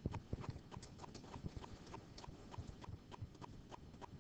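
Pen stylus tapping out short strokes on a drawing surface in a quick, even rhythm of faint taps, several a second, as a dashed line is drawn dash by dash.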